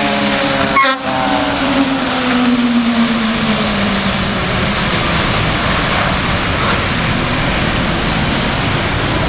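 Fire engine siren tone sliding slowly down in pitch and fading out over the first few seconds, over loud heavy-truck engine and tyre noise on wet pavement, with a brief break in the sound about a second in.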